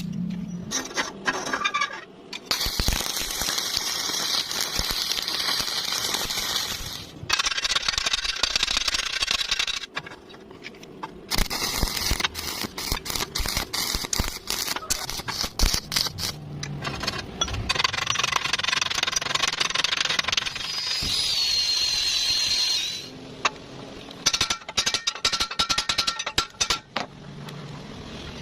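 Electric arc welding: runs of steady hissing and crackling, each lasting several seconds, broken by short pauses where the arc stops and is struck again.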